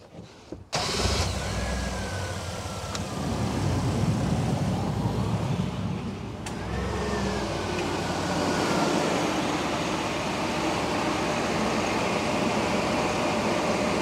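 1997 GMC Safari's 4.3-litre V6 idling with the air conditioning on max and the blower on high while the system is being recharged with refrigerant. The sound cuts in abruptly just under a second in, and a faint click is heard twice, a few seconds apart.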